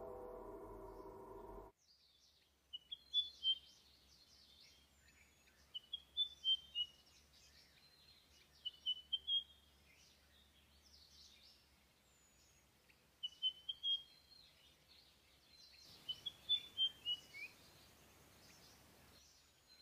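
A music track cuts off about two seconds in. Then small songbirds chirp in short runs of quick notes, about five runs a few seconds apart, over a quiet background.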